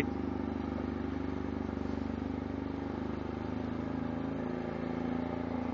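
A vehicle's engine running at a steady pitch with a fast, even pulse while it comes down a steep grade on a dirt logging road.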